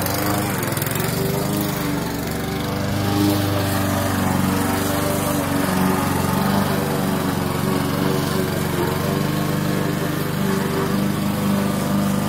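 Gasoline walk-behind lawn mower's small engine running steadily, with a brief dip in level about two seconds in.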